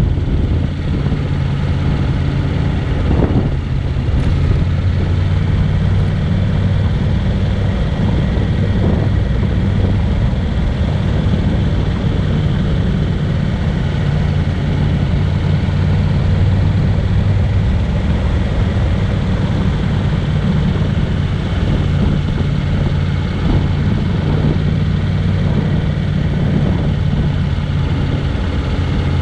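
Honda NC750X motorcycle's parallel-twin engine running at a steady cruise, with a steady rush of wind and road noise.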